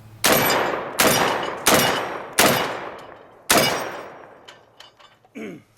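Five shots from an MKA 1919 Gen 2 semi-automatic 12-gauge shotgun firing 2 3/4-inch Winchester Universal 7.5 shot, fired in quick succession with a longer gap before the last, each blast ringing out and fading.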